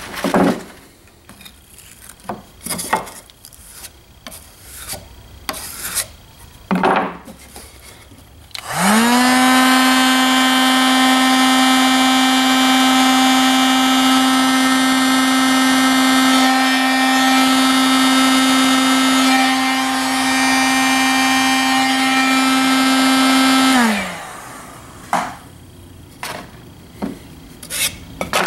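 Electric orbital sander sanding a filled patch in a wooden board. About nine seconds in it spins up and runs at a steady high pitch for about fifteen seconds, then winds down. Before and after it come a few short scrapes and knocks.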